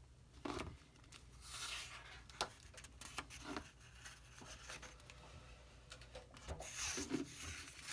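Pages of an old paper booklet rustling and crinkling as they are handled and turned, with a few light clicks.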